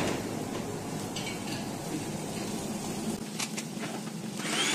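Sliced onions frying in a nonstick frying pan, stirred with a silicone spatula: a steady low sizzle with a few short taps and scrapes of the spatula against the pan.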